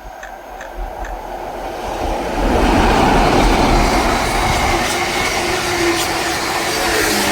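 A train approaching and running past on the line, growing louder over the first two and a half seconds, then loud, steady wheel-on-rail noise as it passes.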